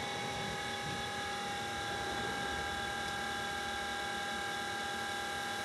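Electric potter's wheel motor running at speed with a steady whine, under a soft hiss.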